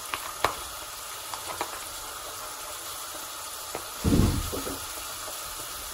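Steaks sizzling in a hot skillet with olive oil: a steady frying hiss. A few light clicks come in the first two seconds, and a dull low thump about four seconds in.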